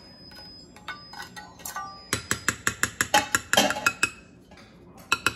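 Spatula tapping against a plate and a glass mixing bowl to knock off minced garlic: a quick run of ringing clinks, about six a second, lasting about two seconds, then two sharp clicks near the end.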